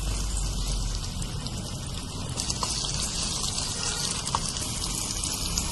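Vegetables cooking in a miniature pot over a small wood fire, sizzling and bubbling in a steady hiss with faint ticks that gets a little brighter about two seconds in.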